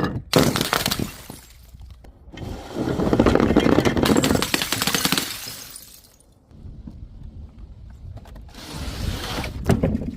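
Objects being crushed and broken, crunching and crackling in three bouts. The first starts sharply just after the beginning, the longest runs through the middle for about three seconds, and the last ends in a sharp crack near the end.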